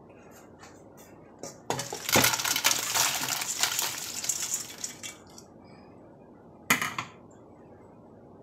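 Boiled crawfish, corn cobs and onion sliding out of a tipped metal pot into a metal pan, a rattling clatter of hard shells against metal for about three seconds, then one more short clatter near the end.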